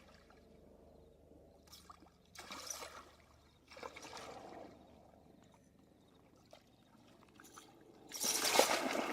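Water splashing and sloshing in a few short bursts, loudest near the end, from a hooked common carp thrashing at the surface.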